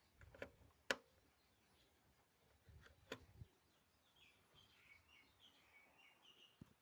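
Near silence broken by a few sharp clicks and light knocks, the sharpest about a second in and another around three seconds in, then faint, short, high chirps like distant birds near the end.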